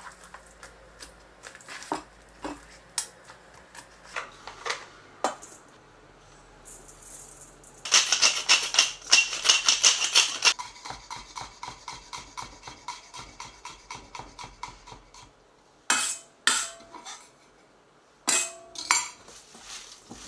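Kitchen prep sounds: wooden chopsticks clicking against a plastic meat tray and a stainless steel bowl, then a wooden pepper mill grinding over the bowl in a loud run of rapid clicks midway, followed by lighter, steadier ticking. Near the end a few sharp knocks with a short ring.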